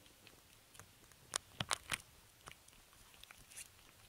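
A few faint, irregular crunching clicks over a low hiss.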